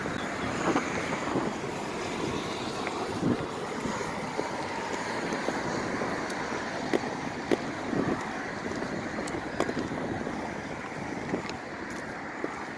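Wind buffeting the microphone over a steady outdoor hiss. A few faint clicks of low-heeled court shoes stepping on paving slabs come in the second half, about two a second.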